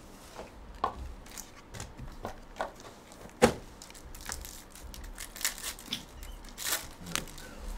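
Plastic wrapper of a Panini Court Kings basketball card pack crinkling and tearing as it is opened by hand, with scattered clicks and one sharp tap about three and a half seconds in.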